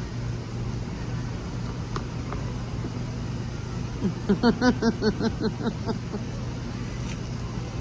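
Steady low hum and background room noise, with a voice making a quick run of about seven short sing-song syllables about four seconds in, without clear words.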